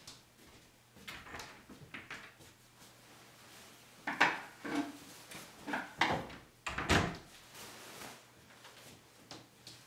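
A panelled door being opened and shut, with a scatter of knocks and clicks as it is handled; the loudest knocks come about four seconds in and again around seven seconds.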